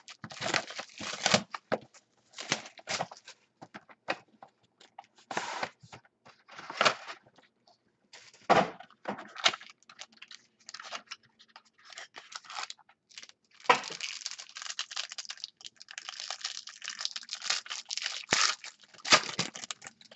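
Plastic and foil wrapping on a box of Absolute football trading cards being torn open and crinkled by hand, in irregular bursts, with a longer run of steady crinkling in the last third.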